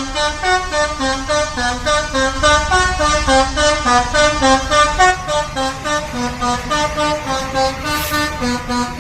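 Telolet horn, a multi-tone musical air horn on a cement mixer truck, playing a rapid tune of short stepped notes.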